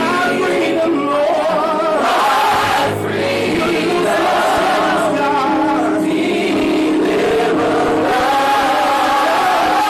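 Gospel choir singing together at a steady loud level.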